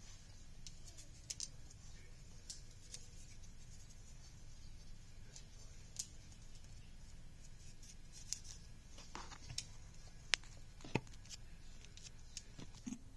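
Faint, scattered small clicks and taps from handling a white cut-out craft piece edged with rhinestone chain, over a low steady hum, with one sharper click a little past ten seconds in.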